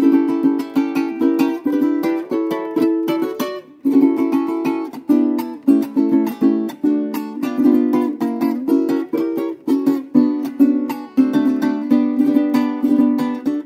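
Four-string Venezuelan cuatro with an exotic-ebony body, European spruce top and ebony fingerboard, strummed in a steady rhythmic pattern with a short break a little under four seconds in. Its tone is deep with a lot of force.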